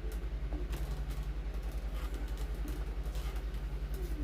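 A steady low mechanical hum that pulses about six times a second, with a few faint clicks over it.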